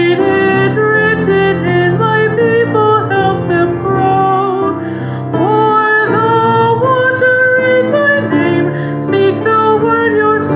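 Hymn sung by a woman with piano accompaniment, the voice carrying the melody over steady chords.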